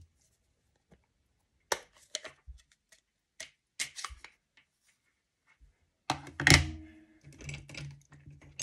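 Clicks and knocks of a plastic Stampin' Up! ink pad case being opened and handled on a tabletop, with one louder thunk about two-thirds of the way in.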